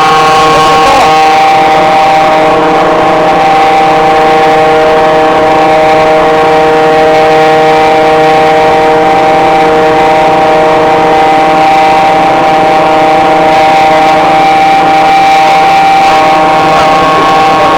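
Ingersoll Rand 132 kW variable-frequency rotary screw air compressor running steadily under power: a loud, constant whine made of several steady tones over a rushing hum.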